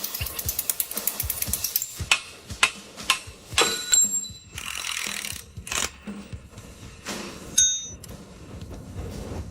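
Rapid ratchet clicking for about two seconds, then scattered metallic clicks and knocks, with two short, high metallic rings.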